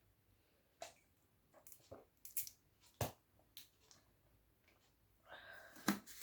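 Faint scattered clicks and mouth sounds from a person drinking soda, the sharpest about three seconds in, then a short breathy sound near the end.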